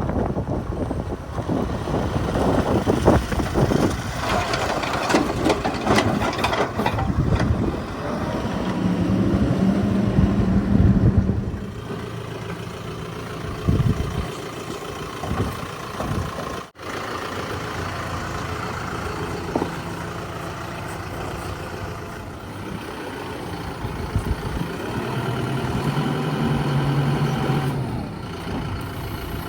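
Mahindra backhoe loader's diesel engine running and revving up twice under load, with a string of knocks and clanks from the machine at work in the first several seconds.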